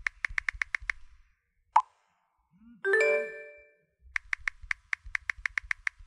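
Smartphone on-screen keyboard clicks, about eight taps a second, typing a message. Just before 2 seconds in comes a single WhatsApp message pop, and around 3 seconds a short chime of several notes, a WhatsApp notification tone. From about 4 seconds the keyboard clicks start again.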